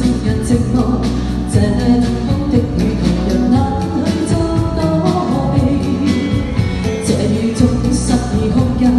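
A woman singing a pop song into a handheld microphone, over instrumental backing music.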